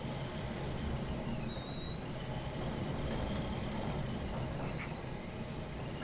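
Blizzard wind blowing hard: a steady low rush and rumble with a thin high whistle that slides slowly up and down in pitch.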